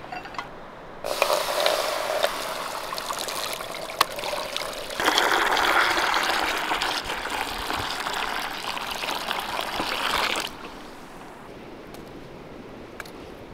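A stream of water poured into a shallow metal pan around lidded clay pots, splashing and trickling as the pan fills. It starts about a second in, gets louder about five seconds in, and stops suddenly near the end.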